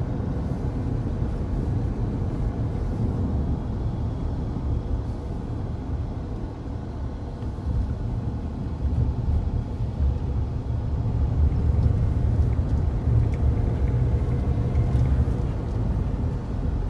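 Low, steady rumble of a car driving, heard from inside its cabin: engine and tyre noise on a rough road.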